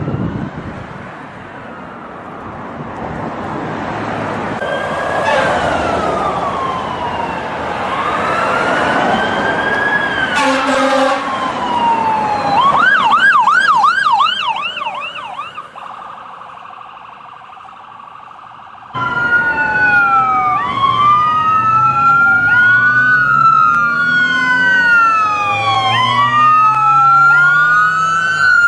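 New York ambulance sirens in traffic: a slow rising-and-falling wail over street noise that switches to a fast yelp about halfway through. After an abrupt cut, several sirens wail out of step with one another.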